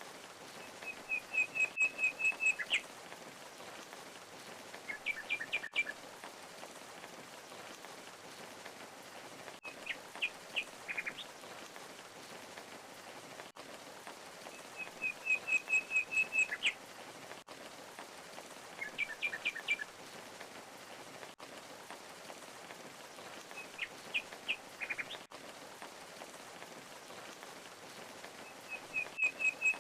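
Steady rush of falling water with a songbird singing short phrases of rapid chirps every four to five seconds; the same run of phrases comes round again about every 14 seconds.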